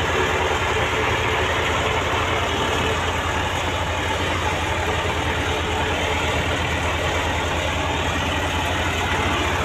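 Diesel engine of an old Russian farm tractor running steadily at low revs, an even rapid chug with no change in speed.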